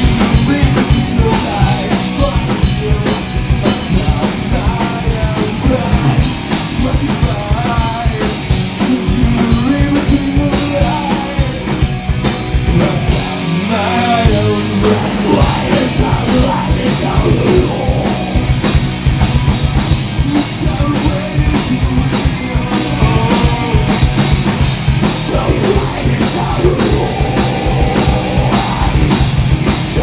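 Live punk rock band playing loud: electric guitars, bass guitar and drum kit, with a shouted lead vocal. The bass and kick drum drop out briefly about halfway through.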